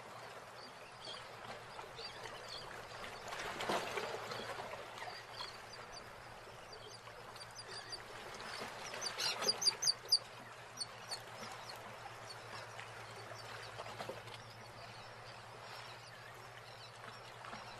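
Faint outdoor noise with a quick run of high-pitched animal chirps about nine seconds in, and a brief rush of noise near four seconds.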